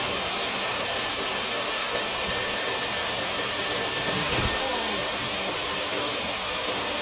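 Dryer vent cleaning vacuum running steadily with a rushing hiss of air through the duct, and a brief low knock about four seconds in.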